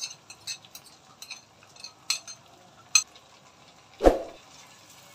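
A spoon clinking and scraping mustard paste out of a bowl into a wok of cooking hog plum pickle, with a faint sizzle, then one loud knock about four seconds in as the wooden spatula is taken up.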